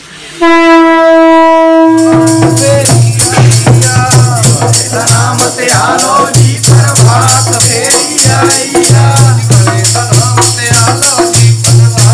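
Devotional hymn music for a religious procession. A long held note sounds about half a second in, then a group sings a hymn over a low steady drone and a regular beat of hand percussion.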